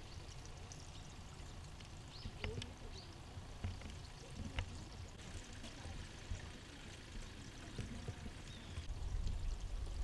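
Steady rush of running water, with a few faint clicks.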